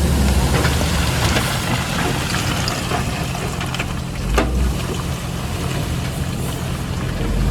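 Heavy diesel earthmoving machinery running steadily at a construction site, with a few sharp metallic clanks, the loudest about four seconds in.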